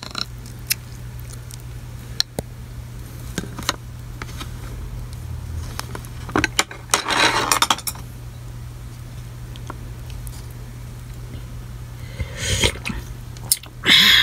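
Wooden chopsticks clicking and clinking against a soup bowl in scattered, separate taps, with a couple of longer noisy stretches of handling about seven seconds in and near the end. A steady low hum runs underneath.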